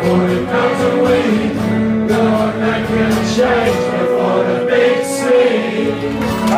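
Live music: acoustic and electric guitars with a man singing, the closing bars of a song.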